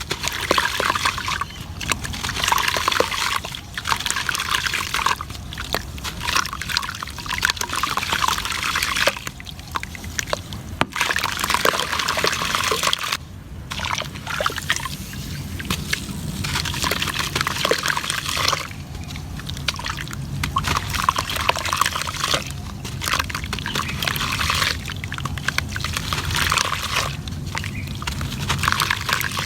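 Gritty cement crumbling in water: wet, crackly crumbling and sloshing in repeated bursts of a few seconds, with short pauses between.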